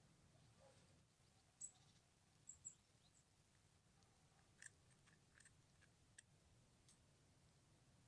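Near silence, broken by a few faint, brief clicks from the corroded stamped-brass buckle's bar and prong as it is handled.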